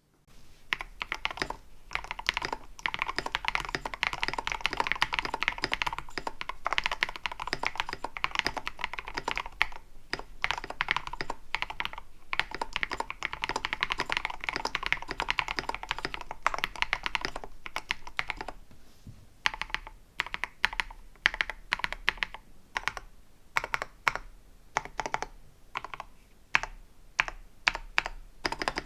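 Typing on a custom 65% mechanical keyboard, a KBDFans KBD67 Lite R3 with lubed Tecsee Jadeite linear switches, Durock V2 stabilizers and tape and PE foam mods. Fast continuous typing, then from about two-thirds in, slower separate key presses.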